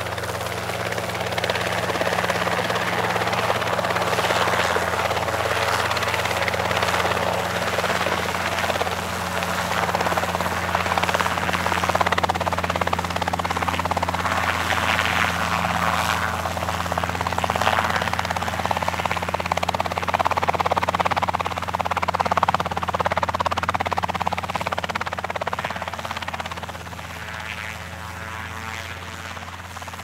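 An aircraft passing: a steady engine drone with a wide rushing noise. It swells in at the start, holds loud, and fades away over the last few seconds.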